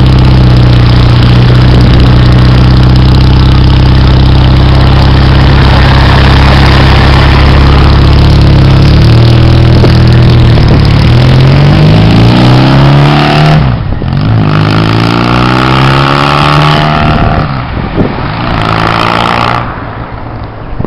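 BMW R 80 air-cooled boxer twin exhaust, running steadily at first, then rising in pitch again and again as the bike accelerates through the gears, with short breaks between runs.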